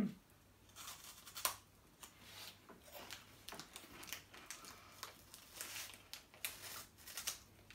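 Faint, irregular crinkling and crackling of a plastic snack packet held up to the mouth, with crunching as a fried snack from it is eaten.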